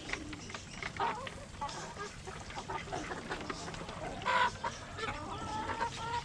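Chickens clucking, with a louder call about four seconds in and a run of quick pitched calls near the end.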